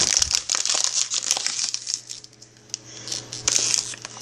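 Thin plastic water bottle crinkling and crackling as it is crushed and twisted by hand. Dense crackling comes in two spells, with a quieter stretch in the middle.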